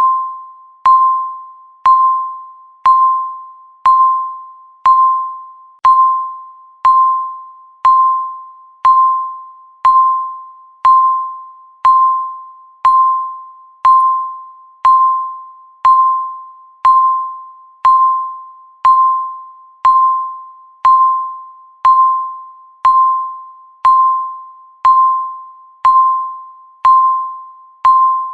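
Countdown timer beeps, one a second: each a single electronic tone of about 1 kHz that starts sharply and fades away, marking each second left.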